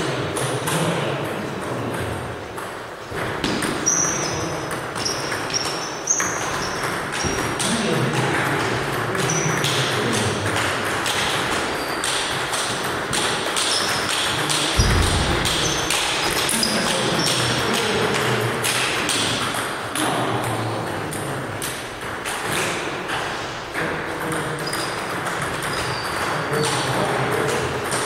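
Table tennis rallies: the celluloid ball repeatedly clicking off rubber paddles and the table top, with more rallies from neighbouring tables.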